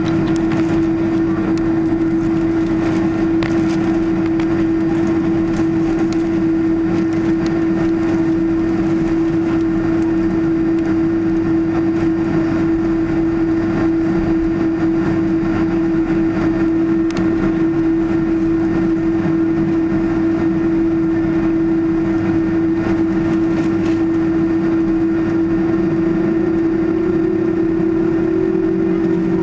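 Airliner jet engines heard from inside the passenger cabin while taxiing: a steady hum with a constant whine. The whine creeps slightly higher in pitch near the end.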